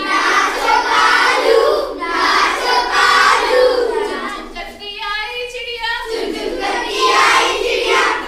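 A group of children chanting a Hindi rhyme together in unison, in short phrases, with a quieter stretch in the middle.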